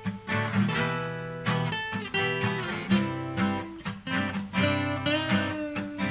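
Acoustic guitars playing an instrumental passage without singing: strummed chords with single-note lines played over them.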